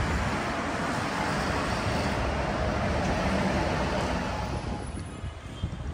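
Road traffic on a city street: the steady rush of a passing car's tyres and engine, which fades about five seconds in.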